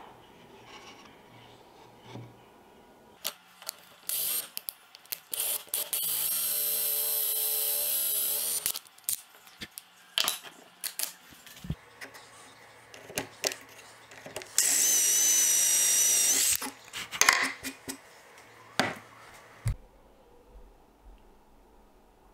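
Power drill running in two steady, high-pitched bursts of about two and a half and two seconds, boring holes through a dowel-drilling jig into the edge of a plywood board. Short knocks and clicks of wood being handled fall between and around the bursts.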